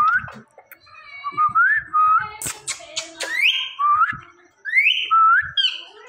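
Indian ringneck parakeet whistling a string of short notes, most of them rising in pitch, with a harsh, noisy call about halfway through.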